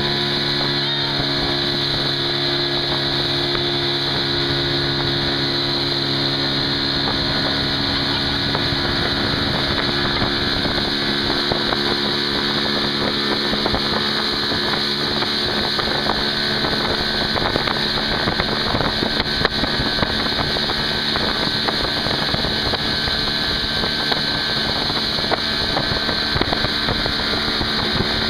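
Motorboat engine running steadily at towing speed, with a constant hum under the rushing of wake water and wind on the microphone.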